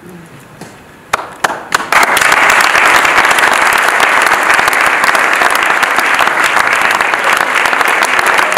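Audience applauding: a few separate claps about a second in, then the whole room breaks into dense, steady applause.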